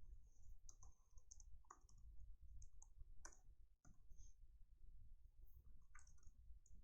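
Faint, irregular keystrokes on a computer keyboard, over a low steady hum.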